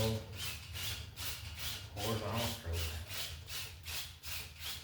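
Large paintbrush scrubbing back and forth over a wet oil-painted canvas, blending the background colours in quick, even strokes, about four a second.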